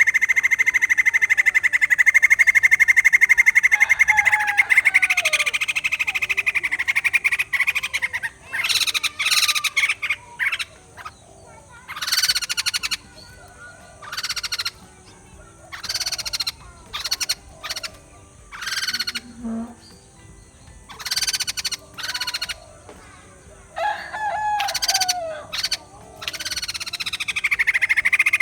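White-crested laughingthrush calls: a long rapid buzzing trill, then a run of short loud calls with gaps between them, and the trill returning near the end.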